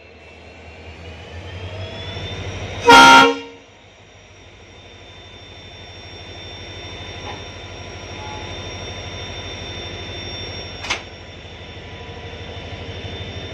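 Locomotive running with a steady hum and a high whine that rises about two seconds in, then a short loud horn toot about three seconds in. A single sharp knock comes near the end as the just-uncoupled locomotive draws away from the other.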